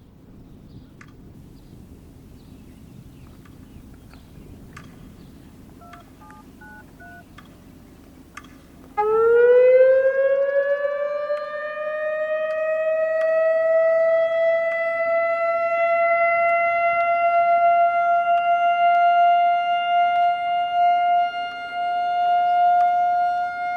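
Light wind noise with a few short beeping tones, then about nine seconds in a Loudoun ES-4000 outdoor warning siren starts. Its pitch rises quickly and then levels off into a steady alert tone, sounding for a test.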